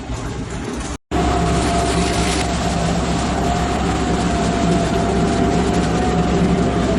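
TR45 mini rotary drilling rig running: a steady engine drone with a high whine held over it. The sound cuts out abruptly about a second in and comes back louder.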